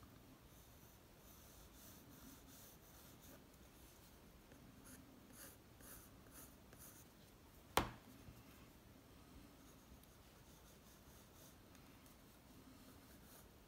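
Staedtler Mars Ergosoft pencil scratching over drawing paper in short, faint strokes. A single sharp click about eight seconds in.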